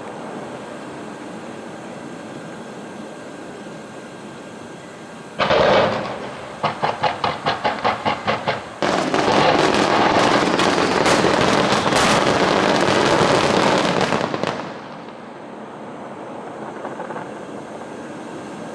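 Fireworks display: one loud burst about five seconds in, then a run of sharp pops about four a second, then several seconds of dense crackling from crackle shells, before it dies back to the background murmur.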